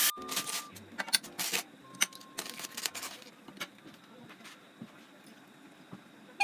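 A series of light clicks and knocks, some with a metallic clink, coming thick in the first three seconds and then thinning out to a few scattered taps.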